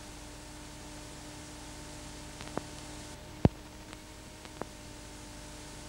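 Steady hiss with a faint low hum from a camcorder recording while its lens is covered, broken by a few sharp clicks, the loudest about three and a half seconds in.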